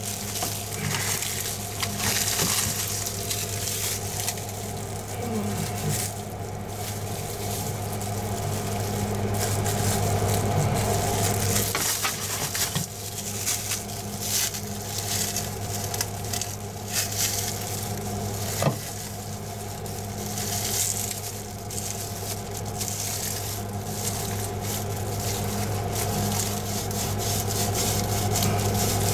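Paint roller working resin into 1708 biaxial fiberglass cloth, a continuous wet crackling squish as the air is rolled out of the layers, with one sharp click about two-thirds of the way in. A steady low hum runs underneath.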